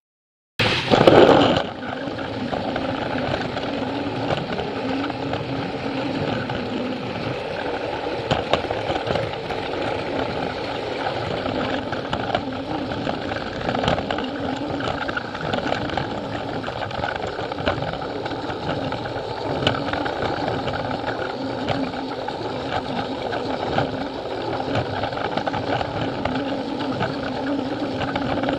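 Plarail toy train running on plastic track, heard from the camera car riding it: a steady whir of its small battery motor and gears with the rattle of plastic wheels on the rails and occasional clicks. It opens, after a moment of silence, with a brief loud burst of noise.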